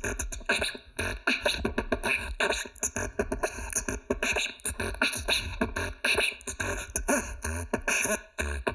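Solo beatboxing: a fast, dense rhythm of mouth-made percussion, with deep kick-drum thumps under quick snare and hi-hat-like clicks.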